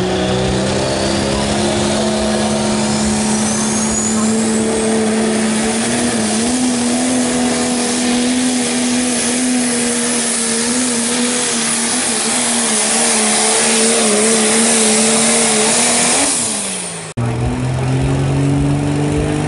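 Four-wheel-drive pulling truck's engine running flat out as it drags a weight-transfer sled, a loud, steady high drone that wavers slightly, then drops in pitch as the throttle comes off near the end. After an abrupt cut, another pulling truck's engine runs at a lower pitch.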